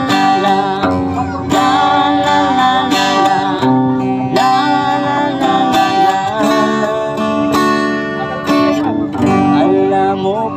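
Acoustic guitar strumming the accompaniment of a Tagalog love song as an instrumental passage between sung verses.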